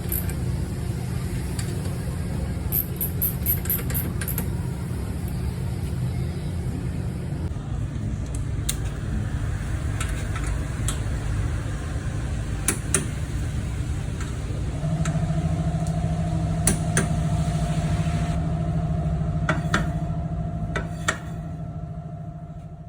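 A car driving: a steady low road-and-tyre rumble with scattered light clicks, joined about two-thirds of the way through by a steady higher-pitched hum.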